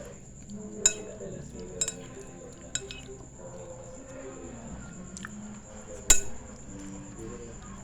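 A spoon clinks against a bowl about five times while someone eats rice porridge. The sharpest clink comes about six seconds in.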